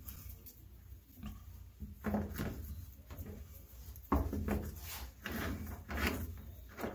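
Three-strand nylon rope strands rustling and rubbing as they are tucked and pulled tight through the end link of an anchor chain, with the chain links shifting against each other and the wooden bench. The handling noises come in a few short, uneven bursts, the sharpest about four seconds in.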